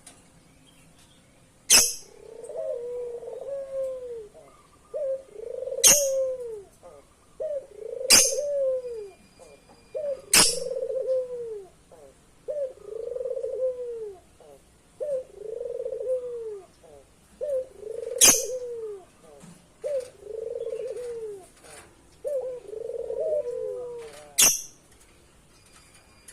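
Young burung puter (Barbary dove, about 4.5 months old) cooing over and over, a call every couple of seconds. Six sharp clicks stand out, louder than the coos.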